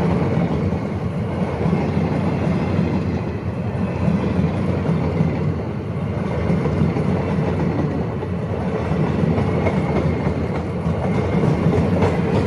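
Indian Railways passenger coaches rolling past at speed: a steady, loud rumble and rattle of steel wheels on the rails.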